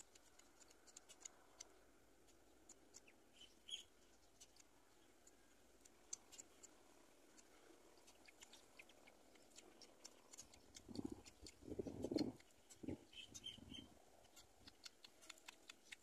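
Near silence with faint scattered clicks and a few faint short chirps. About eleven seconds in comes a louder rustling that lasts about two seconds.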